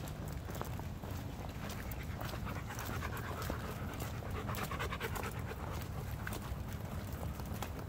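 Shepherd-type dog panting hard while running, with quick footfalls and a steady low rumble under it.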